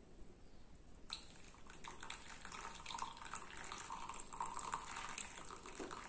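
Water poured from a glass kettle into a small cloth coffee filter, splashing onto the grounds while coffee trickles through into the mug below. The pouring starts about a second in and carries on steadily.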